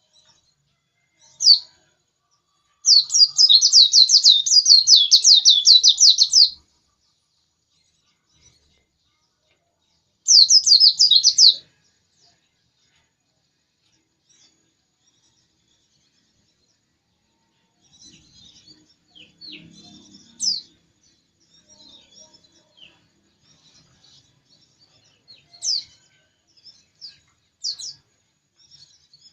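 White-eye (pleci) singing: a fast, high trill lasting about three and a half seconds, a shorter trill around ten seconds in, then scattered single high chirps.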